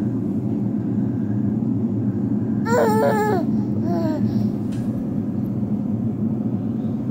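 A baby makes a short vocal sound about three seconds in, its pitch wavering and falling, then a fainter one about a second later, over a steady low hum.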